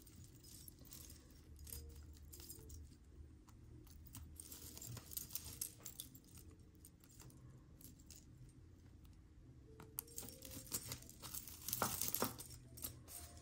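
Tangled metal jewelry chains clinking and jingling faintly as fingers pick them apart, with scattered small clicks and a few sharper clinks near the end.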